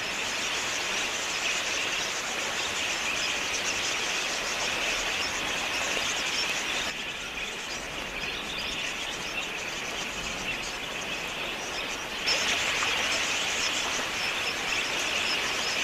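A large flock of wild budgerigars chattering: a dense, continuous twittering of many birds at once. It drops a little about seven seconds in and grows louder again around twelve seconds.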